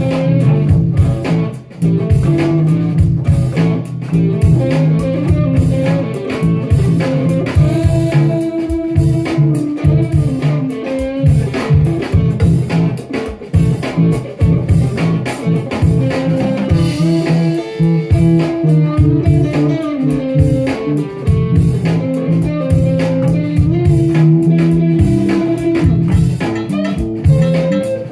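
Improvised blues played on an electric guitar over a bass guitar line, continuous and loud.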